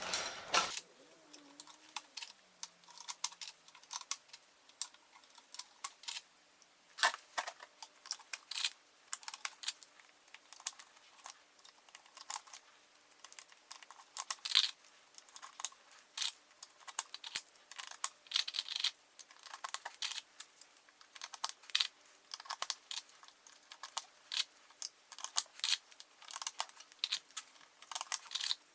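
Irregular sharp plastic clicks and taps of RAM modules being handled and pressed into an HP server's memory slots, the slot latches snapping shut, over a faint steady hum.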